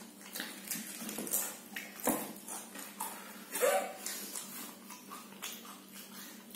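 Pringles potato crisps being bitten and chewed without hands, a run of irregular crisp crunches, with a short vocal sound about three and a half seconds in.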